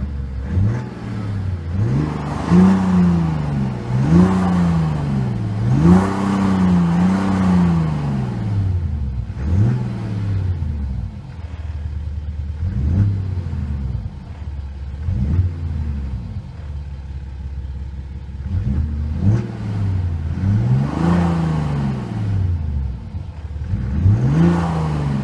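BMW 430d Gran Coupé's six-cylinder diesel engine revved in a series of short blips, each rising and falling in pitch, over a steady idle. Its note is boosted by the M Performance Active Sound exhaust system. The blips come close together in the first several seconds, then more sparsely, and bunch again near the end.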